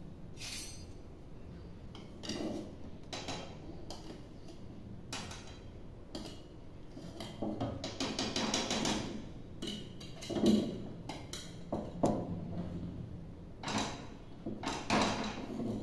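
Stainless-steel kitchen utensils and containers knocking and clinking as they are handled, with a spatula in a wok. A quick run of scraping strokes comes about halfway through.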